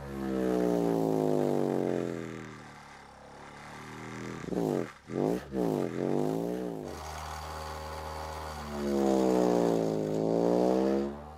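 Hyanka BSC-12 12-inch subwoofer in a 1.3 cubic foot prefab ported box tuned to 38 Hz playing a bass frequency sweep for an SPL test, reaching about 135 to 136 dB. The droning tone glides down in pitch, swings quickly up and down around the middle, holds steady for a couple of seconds, then falls and rises again near the end.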